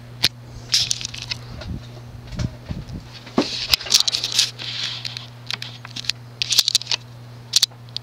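Quorum Electra ceiling fan's 153x18mm spinner motor running on medium speed with a steady electrical hum. Over it, irregular clicks, scrapes and rustles come and go.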